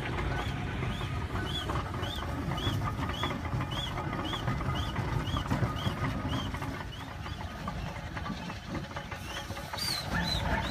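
Steam ploughing set at work: the cable-drawn balance plough squeaks in a steady rhythm about twice a second over a low rumble. The squeaking dies away after about seven seconds, and a short high chirp comes near the end.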